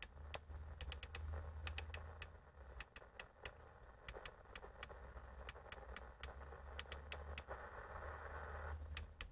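Rapid clicking of the Midland Alan 48 Plus CB radio's channel selector as it is stepped up one channel at a time, over a steady low hum. A patch of receiver hiss from the radio's speaker rises near the end.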